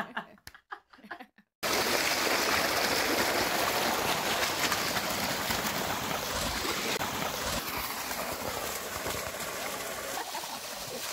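Water gushing from a well's pipe outlet and splashing over the boys' heads and into a concrete tank, a steady rush. It starts abruptly about a second and a half in, after brief voices and laughter.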